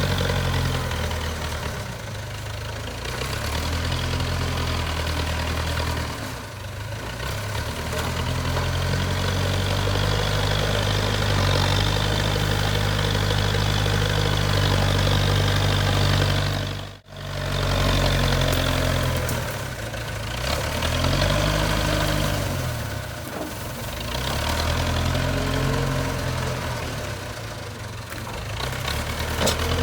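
Diesel engine of a JCB 3CX backhoe loader running steadily, its note dipping and rising at times. The sound breaks off for an instant about halfway through.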